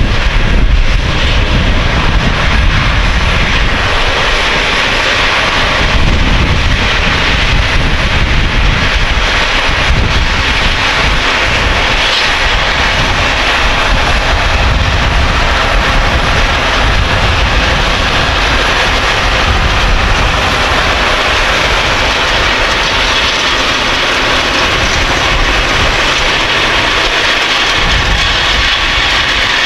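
Case Quadtrac 620 tracked tractor running steadily under load while pulling a Köckerling Vario cultivator and Brix roller: a heavy engine drone with a broad rushing noise over it.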